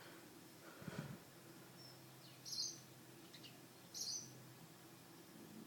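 Tree and house sparrows chirping in short, high, separate calls, two louder chirps about a second and a half apart with fainter notes between, over a faint steady low hum. A brief low rustle comes about a second in.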